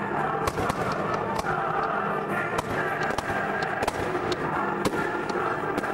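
Fireworks going off in a string of sharp bangs and crackles, irregularly spaced, over steady background music.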